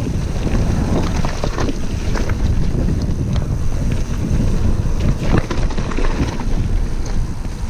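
Wind buffeting the microphone over the rumble of a Vitus Mythique mountain bike's tyres rolling fast down a gravelly dirt trail, with frequent sharp clicks and knocks from stones and the bike rattling over the bumps.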